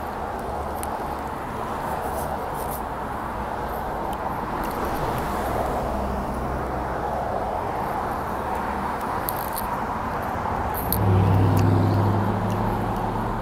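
Steady street traffic noise. About eleven seconds in, a passing vehicle's engine drone grows louder for a couple of seconds, then fades back. A few light clicks are heard along the way.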